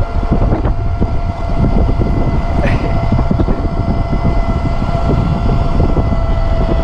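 Uberscoot 1000W electric scooter running at full throttle near its top speed: a steady, unchanging high motor whine over loud wind rush on the microphone and rumble of the tyres on the road.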